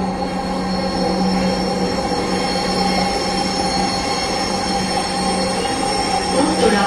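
Dhaka Metro Rail train running, heard from inside the passenger car: a steady rumble of wheels on the track, with a constant low hum and a thin high whine running through it.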